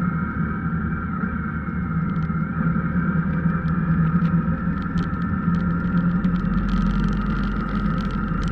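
Vehicle engine running steadily at an even speed with road noise. Scattered ticks come in over the hum, and a hiss joins in during the latter part.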